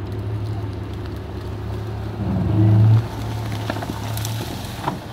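Jeep Cherokee engine running as the off-road vehicle drives through boggy ground, rising in level for about a second partway through as it pulls harder. A single sharp knock near the end.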